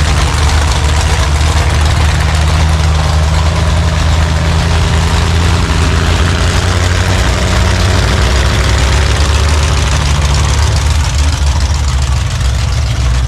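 Large car engine idling, loud and steady.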